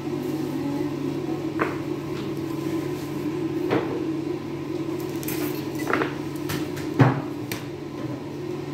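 Dishes being handled: about five light knocks and clicks, the sharpest about seven seconds in, over a steady low hum.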